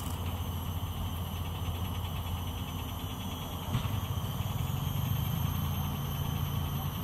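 A vehicle engine running at idle: a steady low hum that steps up slightly in pitch and gets a little louder about four seconds in.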